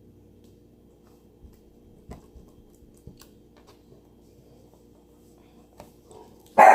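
A few faint taps and clicks of small things being handled over a low steady background, then near the end a dog suddenly barks loudly.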